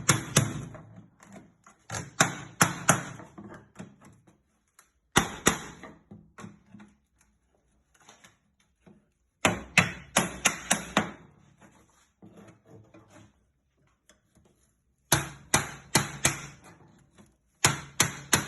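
Hammer tapping a steel pry tool driven under a wooden frame, prising it loose from an old wooden toolbox. The blows come in quick runs of several sharp, ringing knocks, with pauses of a few seconds between runs.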